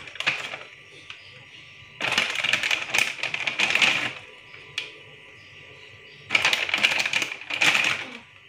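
Two stretches of rapid clattering and rustling, each about two seconds long, from steamed buns being handled and set out in a steamer tray.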